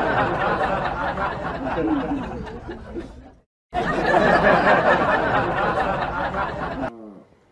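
A jumble of people's voices with laughter. It stops briefly about halfway through, starts again, and fades out near the end.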